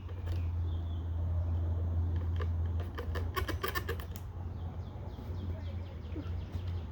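Utility knife working the wood of a carving: a quick run of sharp clicks and cracks about three seconds in, over a steady low hum.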